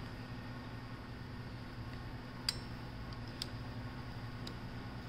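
A few small, sharp metal clicks, three in all about a second apart, from pliers working a cotter pin through the axle nut's castle nut, over a steady low hum.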